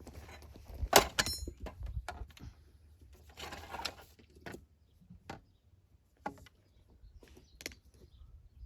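Scattered knocks and clicks from work on the plumbing, the loudest about a second in, with a rustle a few seconds later. A brief bird chirp comes just after the first loud knock.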